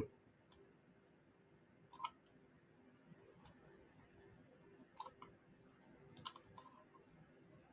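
Faint computer mouse clicks, about half a dozen at uneven intervals, as items are picked in a software dialog.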